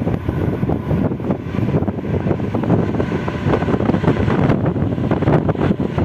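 Strong wind buffeting the microphone: a loud, steady, rumbling rush with irregular gusty flutter.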